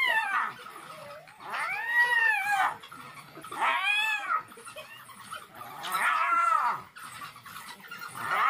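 An animal's repeated high wailing squeals, each rising and then falling in pitch over about a second, coming roughly every two seconds.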